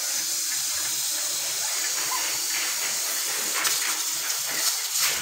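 Stovetop pressure cooker venting steam through its weight valve: a steady hiss, sputtering irregularly over the last couple of seconds as the cooker comes up to pressure and whistles.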